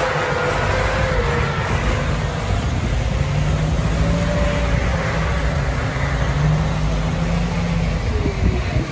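Farm tractor's diesel engine running steadily while working a disc plough through loose fill soil, its pitch drifting gently up and down, with a few knocks near the end.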